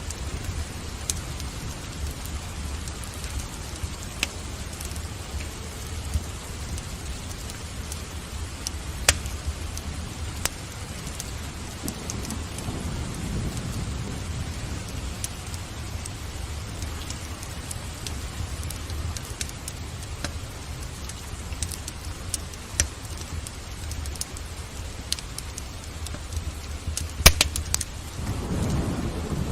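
Steady rain with a low rumble under it, and sharp pops of a wood fire crackling in a fireplace, the loudest a little before the end. Thunder rumbles and swells briefly around the middle and again at the end.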